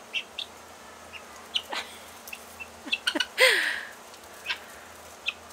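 Guinea fowl giving short, sharp clicking calls at irregular intervals. About three and a half seconds in comes a person's short, breathy laugh, the loudest sound here.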